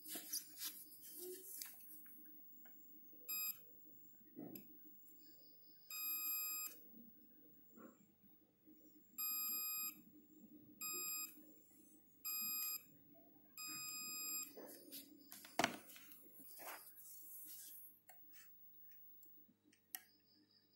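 A multimeter's continuity buzzer giving six short beeps, each half a second to a second long, as test probes touch the HD7970 graphics card's VRM MOSFETs. The beeps mark a near-zero-resistance path, the sign of a shorted power stage. Scraping noises come near the start and again about two-thirds of the way through.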